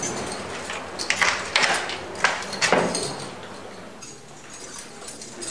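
A door being opened and passed through: a handful of sharp knocks and clatters between about one and three seconds in, then a quieter stretch.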